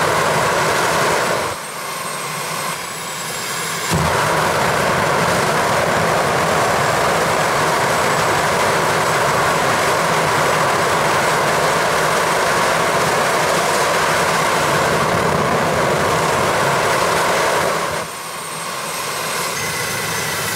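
The J16-B jet kart's jet engine running with its afterburner, fitted with a new flame holder, lit: a loud roar that drops away about a second and a half in, leaving the engine's high whine. The afterburner relights with a pop about four seconds in and roars until it drops out again near the end.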